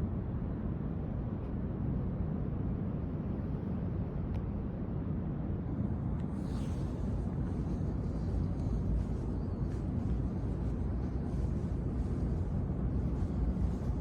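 Steady low background rumble of indoor room tone, with faint scattered ticks and rustles in the second half.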